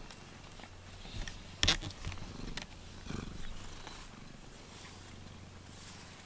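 Domestic cat purring steadily while being stroked on a lap, with one sharp click about a second and a half in.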